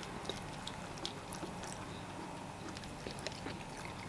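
Faint eating sounds: scattered small wet clicks of chewing fufu and vegetable soup, over a low steady hum.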